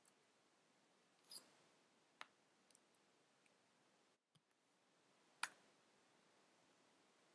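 Near silence with three faint, short clicks from computer controls. The last click, about five and a half seconds in, is the loudest.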